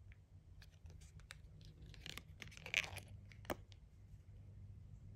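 Quiet handling of a small pin and costume jewelry: scattered light clicks and brief rustles, the loudest a rustle near three seconds in and a sharp click just after.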